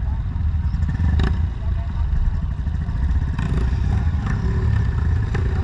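Dirt bike engine idling in neutral, a steady low running, with a few brief clicks and other trail bikes running around it.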